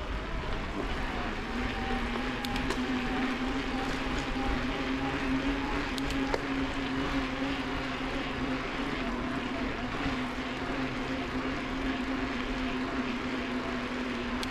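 Electric mountain bike's motor whining at a steady pitch, starting about a second in, over a steady hiss of wind and tyres.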